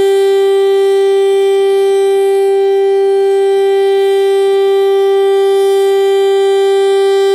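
Federal Signal STL-10A outdoor warning siren sounding a loud steady tone at one unchanging pitch, its full-alert test signal.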